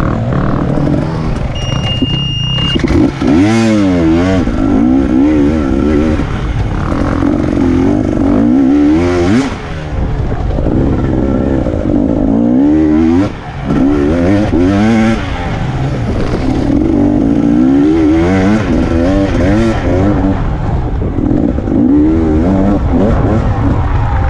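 Enduro motorcycle engine revving up and rolling off again and again as it is ridden hard along a dirt race track, heard close from a camera mounted on the bike.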